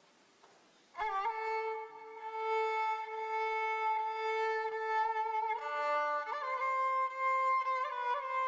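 Background music: a violin playing a slow melody of long held notes, coming in about a second in after a moment of near-quiet.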